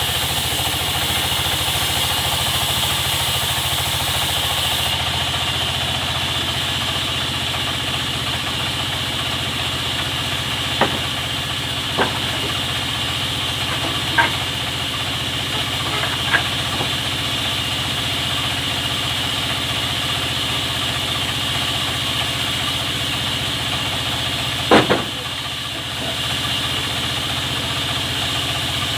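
Sawmill machinery running steadily, a low engine-like hum under a constant high whine, with a few sharp single knocks in the middle and a louder double knock near the end.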